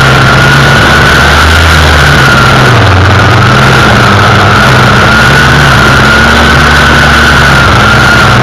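Gas-powered string trimmer (weed eater) running at full throttle while cutting weeds: a loud, steady engine whine that wavers slightly in pitch.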